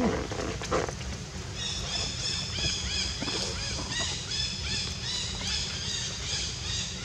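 Birds chirping rapidly and repeatedly in high, quick notes, over a steady low rumble. Two brief rustling noises come in the first second.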